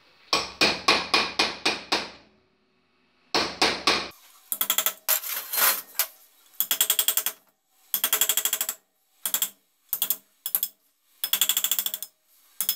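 Small hand hammer tapping a carbide chisel into a cylinder head in quick runs of light metallic strikes with short pauses between: a crack being chiselled open into a groove to prepare it for TIG welding.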